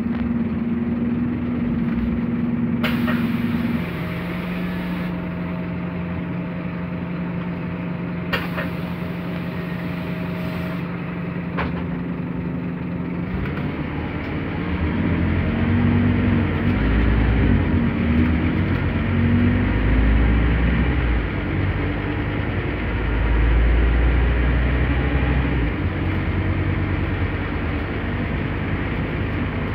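Scania K270UB city bus's 9-litre five-cylinder DC9 diesel engine heard from on board: a steady drone for the first half, with two stretches of hiss. About halfway through, the engine note begins rising and falling under heavier load, with a deeper, louder rumble as the bus accelerates.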